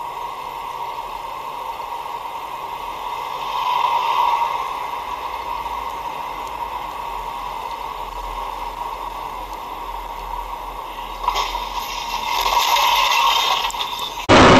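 Steady road and engine noise of a car driving, as picked up by a dashcam, swelling louder about four seconds in and again near the end. At the very end a much louder engine sound cuts in abruptly.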